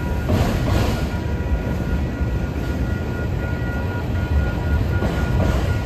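Autorack freight cars rolling past a grade crossing: a steady low rumble of wheels on rail, with swells of clatter about half a second in and near the end. Over it rings the crossing's warning bell as a steady high tone.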